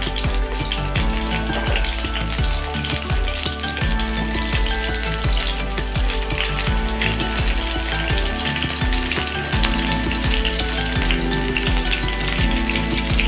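Breaded chicken cutlets shallow-frying in hot oil in a nonstick pan, a steady crackling sizzle, as the pieces are turned over with tongs. Background music plays underneath.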